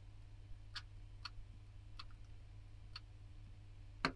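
Scattered sharp clicks of a computer mouse and keyboard, about six in all, the loudest near the end, over a faint steady low electrical hum.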